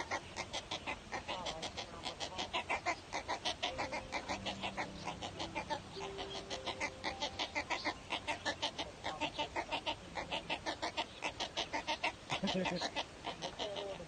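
Waterbird nestlings in a stick nest calling over and over, a fast ticking chatter of about five calls a second.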